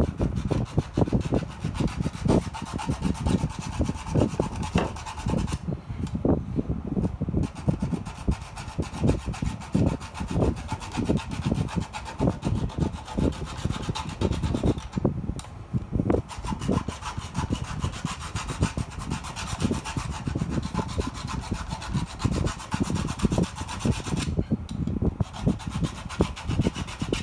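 Square hand file rasping back and forth in quick, short strokes, cutting a small guide notch, with brief pauses three times.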